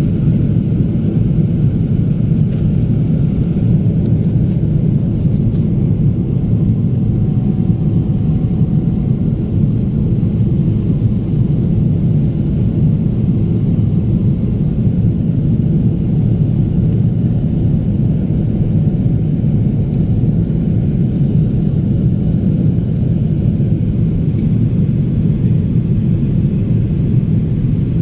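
Steady low roar of a jet airliner's engines and rushing air, heard from inside the passenger cabin during the climb after takeoff.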